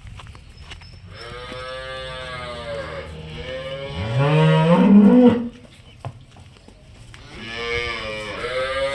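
Cattle mooing: a long drawn-out moo beginning about a second in and growing louder toward its end, then a second moo starting near the end.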